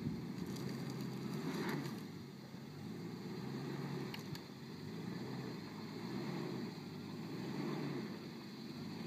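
1989 Range Rover's engine running at low speed under load, its sound swelling and easing every few seconds, with a few faint clicks in the first two seconds and again about four seconds in.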